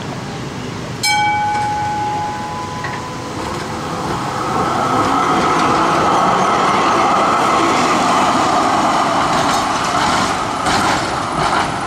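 A Melbourne B2-class articulated tram moving off and passing close by: its gong rings once about a second in, then the running noise of motors and steel wheels on the rails grows louder, with a few sharp clacks near the end.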